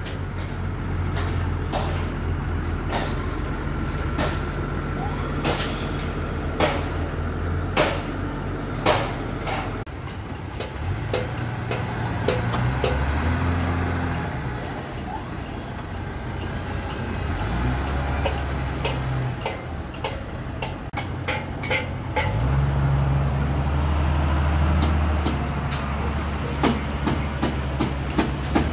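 Heavy diesel construction machinery, a tracked excavator and a wheel loader, running with a steady low engine drone, punctuated by many sharp metallic knocks and clanks. The engine note changes twice, about ten seconds in and again a little past twenty seconds.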